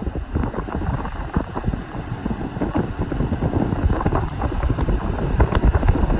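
Vintage Eskimo box fan running on high, its strong airflow buffeting the microphone with a steady, rough rushing noise.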